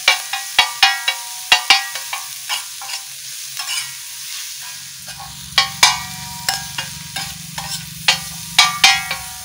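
Steel spatula striking and scraping a large black metal tawa while stir-frying shredded cabbage, carrot and onion in oil, over a faint sizzle. The clangs come irregularly, a few a second, each ringing briefly.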